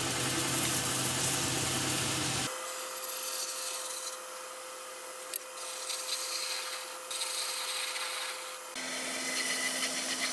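Wood lathe running while a gouge cuts into the spinning turnip, hollowing out its inside: a steady scraping hiss over the lathe's hum. The hum changes pitch abruptly about two and a half seconds in and again near the end.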